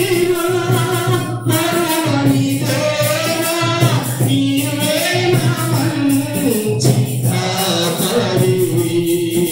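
Singing of a Telugu Christian devotional song with instrumental accompaniment; the voice holds long notes and slides between pitches.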